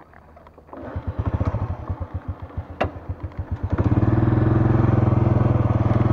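Small single-cylinder four-stroke engine of a Honda underbone motorcycle catching about a second in and idling with a quick, even putter. A single sharp click comes near the middle, then the engine revs up to a louder steady drone as the bike pulls away.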